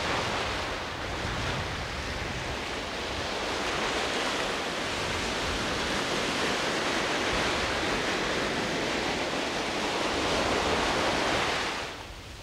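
Sea surf washing and breaking, a steady rushing noise that swells in the middle and cuts off suddenly near the end.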